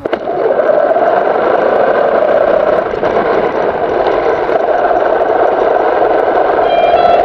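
Radio-controlled car's drive motor and gears whirring steadily as the car drives over gravel and grass, heard close up from the camera mounted on the car.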